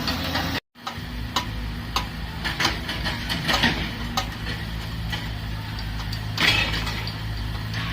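Heavy diesel construction machinery, such as an excavator, running steadily, with irregular metallic clicks and knocks over the engine hum. The sound drops out briefly under a second in.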